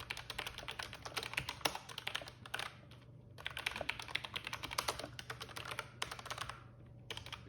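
Fast typing on a Logitech MX Mechanical keyboard with its tactile quiet low-profile switches: a quick run of quiet key clicks. The typing pauses briefly about three seconds in and stops for good near the end.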